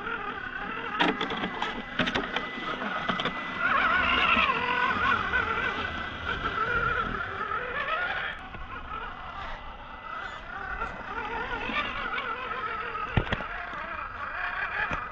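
Small electric motor and gear drive of a 1/24-scale FMS FCX24 Mercedes Unimog 421 RC crawler whining, its pitch rising and falling with the throttle, with a few sharp clicks and knocks as it crawls over sand and stones.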